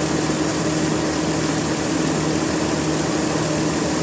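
Machinery running steadily: a constant engine-like hum over an even rushing noise, with no change in pitch or level.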